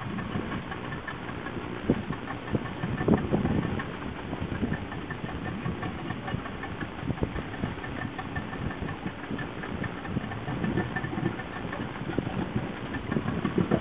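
Small boat's engine running steadily, with irregular low thumps.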